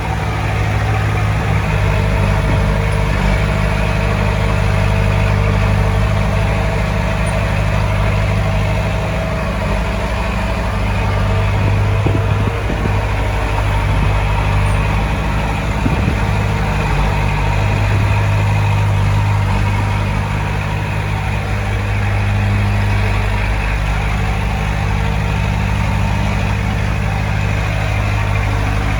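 Heavy diesel engine of earth-moving equipment running steadily with a deep, even hum, swelling slightly a couple of times as it takes load.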